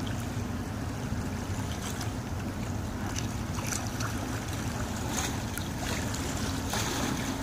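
Steady low rumble of wind buffeting the microphone by open water, with a faint steady low hum underneath and a few faint ticks.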